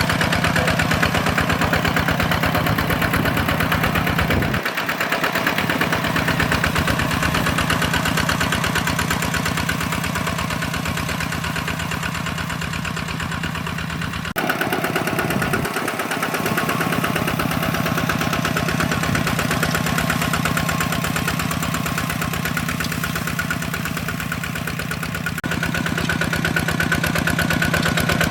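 Single-cylinder diesel engine of a two-wheel hand tractor running steadily with a rapid, even beat. Its tone and loudness change abruptly a few times.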